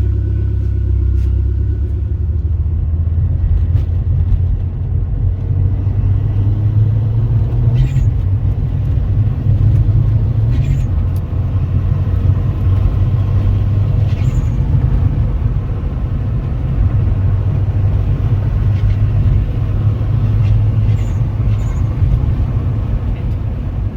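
Turbocharged VW Golf running through its modified exhaust, a 3-inch stainless line with the single muffler gutted, giving a steady, loud low rumble.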